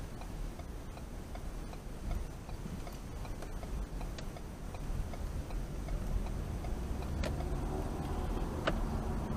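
Car turn-signal indicator ticking evenly, a few ticks a second, over low engine rumble as the car turns away from a stop. Engine and road noise grow louder after about six seconds, with two sharp clicks in the last couple of seconds.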